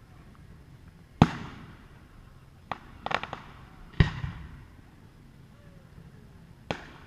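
Aerial firework shells bursting overhead: three sharp booms, each trailing off in a rolling echo, with a quick run of smaller crackling pops between the first two.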